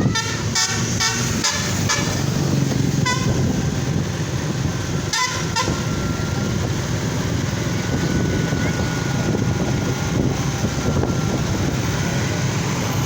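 A tour bus's Basuri multi-tone telolet horn sounding a string of short toots in the first two seconds, then warbling pulsed toots about three and five seconds in, over the steady rumble of the bus engine.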